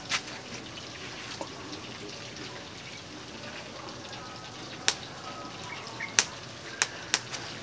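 Wood fire crackling in an earth pit oven: a few sharp pops, several of them in the last three seconds, over a steady hiss.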